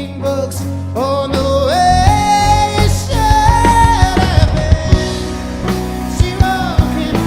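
A rock band playing live: drums and bass under a lead line that slides between long held notes.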